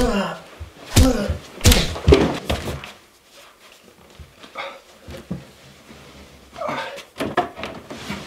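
Men scuffling in a fight: several sharp thuds and slams, mostly in the first two seconds and again near the end, with short grunts and shouts between the blows and a quieter stretch in the middle.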